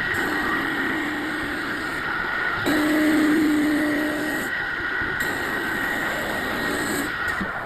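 CNC wood lathe running while it machines a chair-leg blank: a steady motor whine with the noise of cutting wood. The sound changes abruptly a few times.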